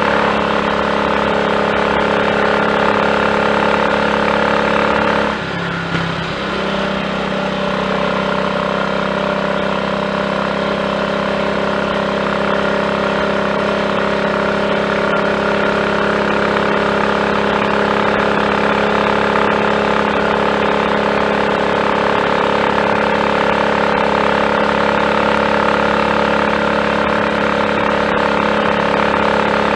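Triumph Tiger Cub's single-cylinder four-stroke engine running steadily under way. It runs evenly with no misfire, on a carburettor newly fitted with a new slide, needle, needle jet and main jet to cure a rich mixture. About five seconds in, the engine note dips briefly, then steadies again.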